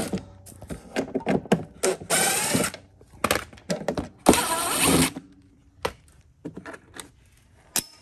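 Cordless driver running in two short bursts, about two and four seconds in, backing out Torx screws from a plastic mower cover. Scattered clicks and knocks come between the bursts.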